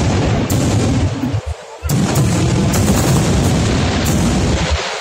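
Fireworks going off in a dense barrage of booms and cracking reports, with a brief lull about a second and a half in, broken by a loud bang.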